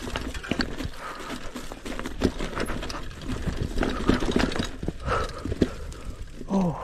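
Mountain bike rolling slowly over rocky ground strewn with stones and pine needles: tyres crunching and the bike rattling with many irregular knocks and clicks. A brief falling sound comes near the end.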